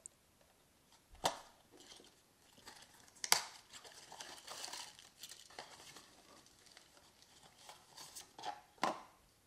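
Hands opening a small printed cardboard box: scattered light rustling and tapping of card and paper. A sharp tap comes about a second in and a louder one about three seconds in, then a stretch of rustling and a couple more taps near the end.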